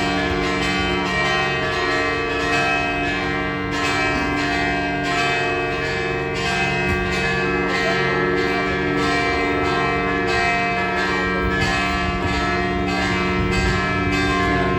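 Bells ringing in a continuous peal: several bells struck over and over, their tones overlapping and hanging on steadily.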